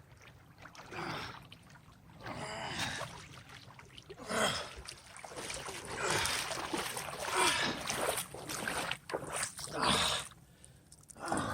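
Splashing water and heavy, gasping breaths from a swimmer in cold water, coming in irregular bursts.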